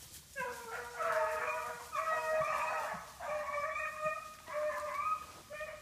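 A pack of Patch hounds baying on the track of a swamp rabbit (canecutter), several voices overlapping in long, drawn-out bays.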